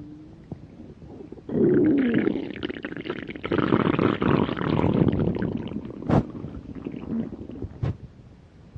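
A person's stomach growling. A faint rumble swells about a second and a half in into a loud, long gurgling rumble with a wavering low pitch, broken by two short sharp pops later on, then fades.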